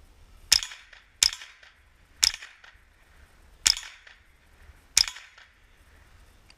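Five .22 LR rifle shots from a Smith & Wesson M&P15-22 semi-automatic, fired at an uneven pace about a second or so apart, each a sharp crack with a short tail.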